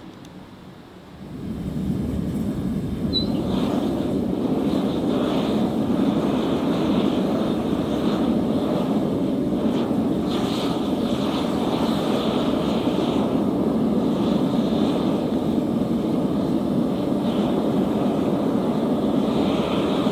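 Furnace burner running with a steady rushing roar as lava rock melts in the crucible; it comes up about a second and a half in and then holds level.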